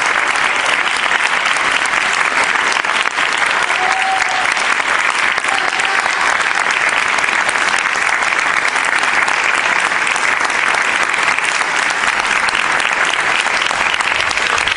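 Theatre audience applauding, with a dense, steady clapping that neither builds nor fades.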